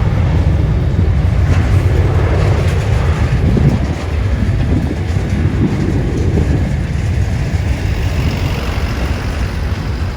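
Loud, steady low rumble of jet airliner engine noise at an airport, with strong wind buffeting the phone's microphone.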